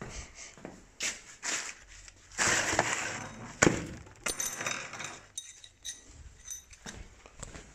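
Metal engine parts being handled and put away: clicks and knocks, rustling of packaging, and a sharp metallic clink with a short ring about three and a half seconds in.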